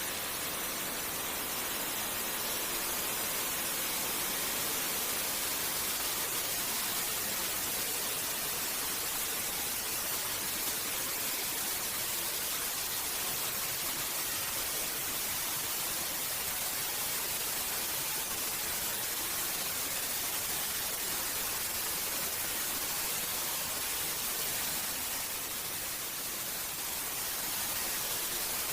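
Steady white noise: an even, bright hiss with no tones or rhythm, made as a sleep aid for babies.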